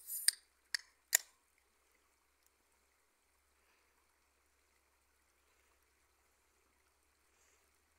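Aluminium beer can opened by its ring-pull: a short hiss of escaping gas and two sharp clicks from the tab within the first second or so. After that only a faint, steady trickle of a shallow stream.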